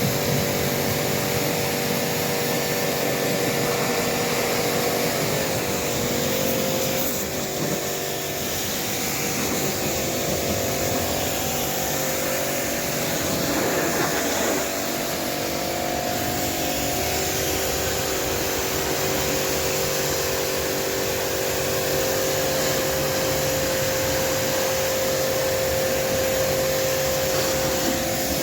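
A steady electric motor running without a break, with a constant whine and a hissing rush.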